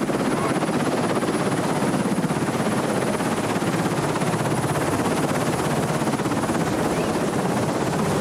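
Large passenger helicopter running close by: a steady engine and rotor noise with a fast, even beat of the rotor blades.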